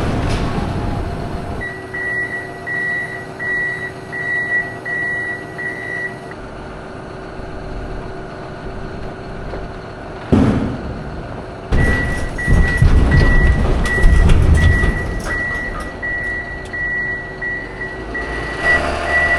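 A machine's reversing alarm beeping about one and a half times a second over a diesel engine running, stopping for several seconds and then starting again. A single loud knock comes about ten seconds in, and the engine works harder for a few seconds as the beeping resumes.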